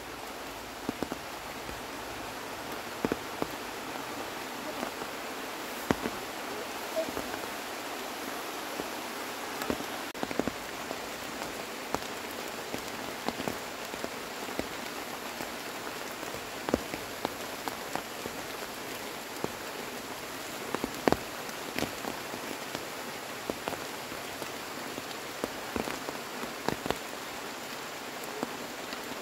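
Steady rain falling, a continuous hiss with many irregular sharp drips and taps scattered through it.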